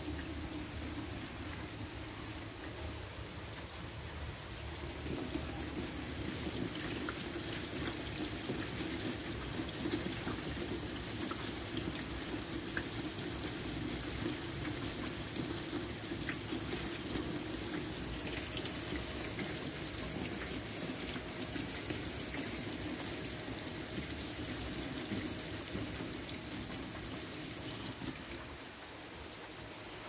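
Steady rain falling on a wet, puddled walkway, drops splashing into standing water with a few faint ticks. A deeper, fuller layer of water sound swells about five seconds in and eases near the end.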